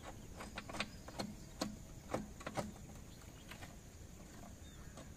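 Light clicks and knocks of metal, about eight of them in the first three seconds and few after, as hands work the bolts on the rim of a Mahindra 575 tractor's steel rear wheel.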